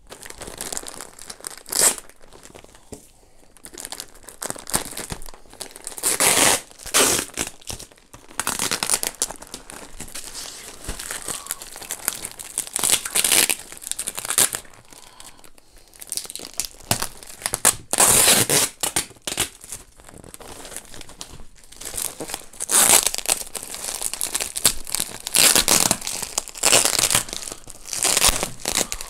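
Thin plastic shipping bag crinkling and packing tape being peeled and torn as a parcel is opened by hand, in irregular bursts of rustling.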